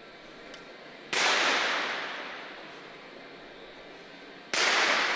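Two .22 free pistol shots, about three and a half seconds apart, each a sharp crack with an echo that dies away over about a second and a half.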